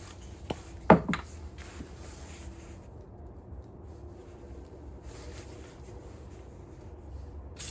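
Handling noises while working on a spin-mop bucket mechanism: a sharp click about a second in, then faint rubbing and brief hissy rustles.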